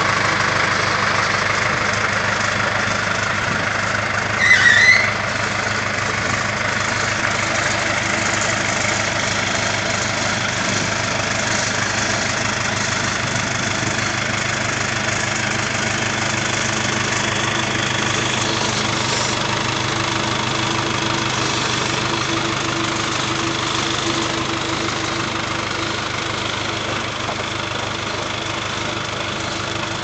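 John Deere 482C forklift's diesel engine running steadily at idle. A brief, high, rising squeal comes about four and a half seconds in.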